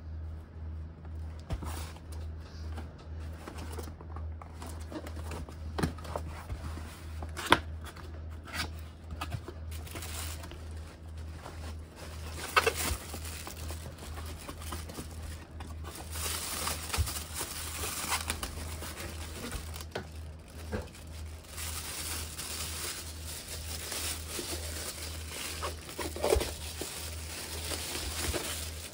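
Cardboard box being handled and opened, with scattered taps and scrapes of the flaps, then the thin plastic bag around a pair of binoculars crinkling as it is lifted out and turned over, almost without break through the second half. A steady low hum underneath.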